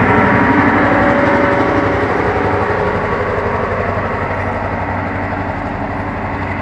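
Ontario Northland diesel passenger train moving slowly past: the coaches' wheels rolling on the rails over a steady diesel locomotive engine hum, slowly getting quieter.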